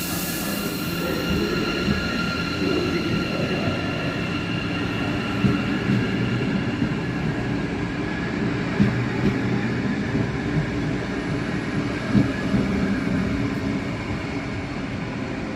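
Train moving through a station: a steady rumble of wheels on track with a few sharp knocks. Steady high whining tones sound over it in the first few seconds.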